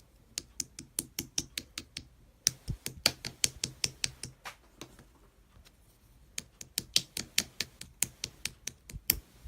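Rapid sharp taps or clicks, about four to five a second, in three runs with short pauses between them.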